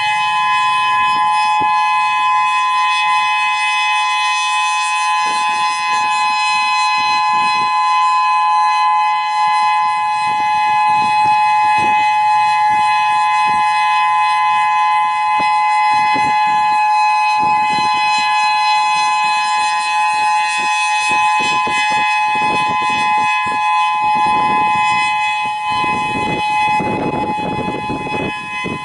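Whelen 3016 rotating electronic siren sounding its steady two-tone alert (850 and 1020 Hz together), swelling and fading slightly as the head turns. Wind gusts buffet the microphone, strongest near the end.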